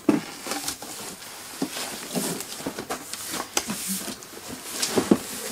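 Cardboard shipping box holding a heavy subwoofer being handled and turned over on a wooden tabletop: cardboard rubbing and scraping, flaps shifting, with a few sharper knocks near the end as the box is set down.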